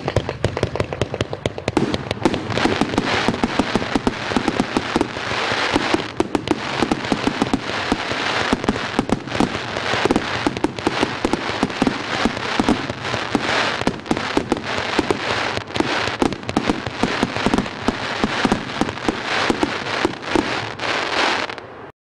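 A 100-shot 1.3G firework cake (Crown Pyrotechnics CP116-100F, color and cherry-blossom effects) firing in quick succession, several sharp shots a second over a continuous hiss and crackle.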